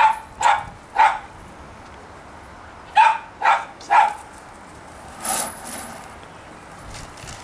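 Miniature pinschers yapping for food, barking up at the person holding the nuggets. There are three sharp barks in the first second and three more about three seconds in, followed by a softer sound just after five seconds.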